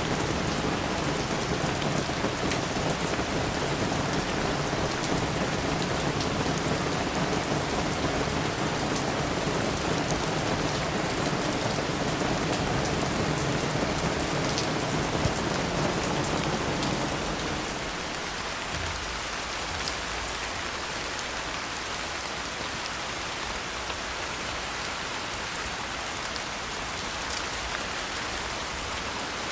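Steady rain falling, an even hiss with scattered drop ticks. About two-thirds of the way through, its lower, fuller part drops away and the rain sounds lighter and thinner.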